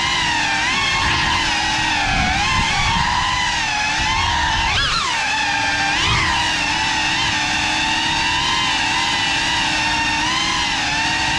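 FPV quadcopter's brushless motors and propellers whining, the pitch rising and falling with the throttle, with two sharp punches about five and six seconds in.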